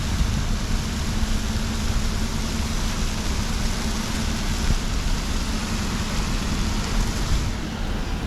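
Fountain water splashing steadily, with a low steady hum underneath.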